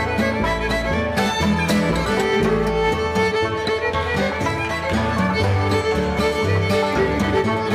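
Live string band playing a contra dance tune: a fiddle carries the melody over guitar and upright bass, with a steady, even beat.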